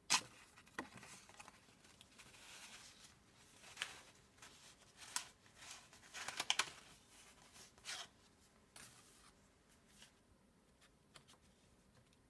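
Paper and card stock rustling, sliding and crinkling as an envelope is opened and a pop-up card is pulled out and handled, with scattered light taps. It is faint, with the loudest rustles just after the start and about six and a half seconds in.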